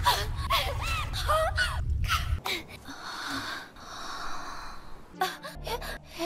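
A person's breathy vocal sounds: short gasps and cries over a low rumble that cuts off about two and a half seconds in, followed by a long wheezing breath and a few small clicks near the end.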